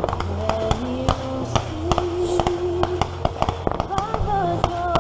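A national anthem playing, in long held notes, with many sharp pops of fireworks scattered through it.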